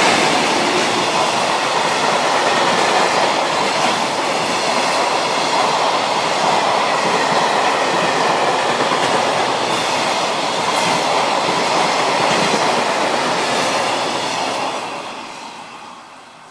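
N-gauge model freight train of KATO Resa 10000 refrigerated wagons rolling past on the layout track: a steady rumble and clatter of small wheels over the rails, with a few sharp high ticks. It fades away over the last couple of seconds as the tail of the train enters the tunnel.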